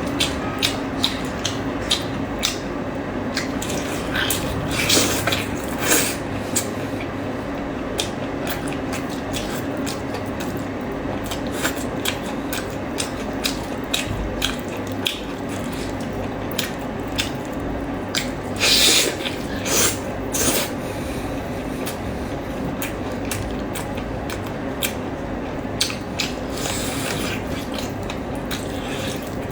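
Close-miked eating sounds: wet chewing and lip-smacking clicks coming many times a second, over a steady low hum. There are a few longer, louder wet bursts, around 5 seconds in and again about 19 to 20 seconds in.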